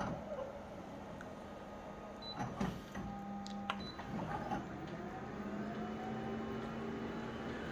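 Photocopier running through a copy: a steady mechanical hum with a few clicks and knocks from the mechanism a couple of seconds in.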